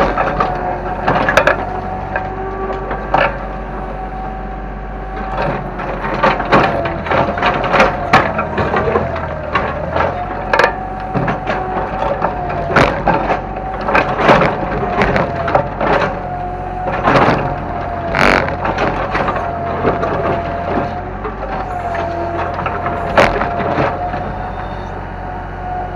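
Kobelco excavator running with a steady whine that wavers slightly, amid repeated sharp cracks and crunches of breaking wood and debris as it tears down a house.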